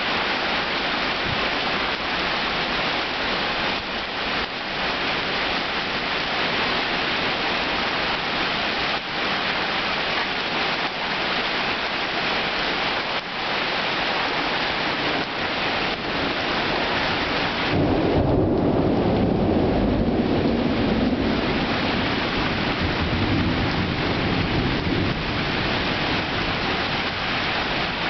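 Heavy rain falling steadily in a thunderstorm. About two-thirds of the way in, a deep roll of thunder breaks over the rain, becomes the loudest sound, and rumbles on until near the end.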